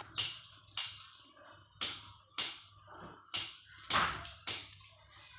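Background music carried by tambourine jingle hits in a loose repeating rhythm, about two a second, each ringing out briefly.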